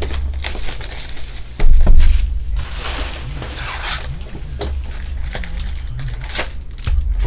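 Plastic shrink wrap crinkling and tearing as a sealed trading-card hobby box is opened, then the cardboard lid flap and foil card packs being handled. A loud burst of handling noise comes about two seconds in.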